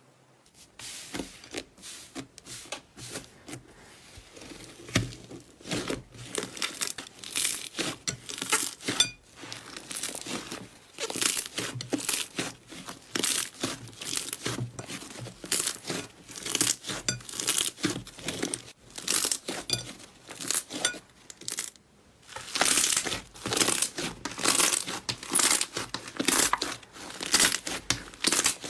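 Slime worked by hand, stretched, pressed and folded, giving a rapid, uneven run of sticky crackles and pops. There is a brief lull a little over twenty seconds in, then the crackling comes back louder and denser.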